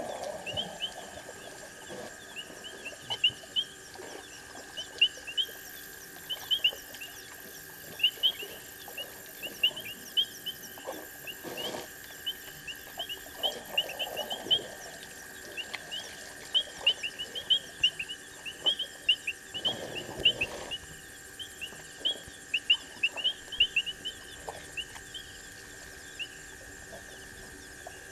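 Night-time chorus at a waterhole: many short, high chirps in quick irregular succession over a steady high drone. A few brief, lower rushing sounds come through now and then.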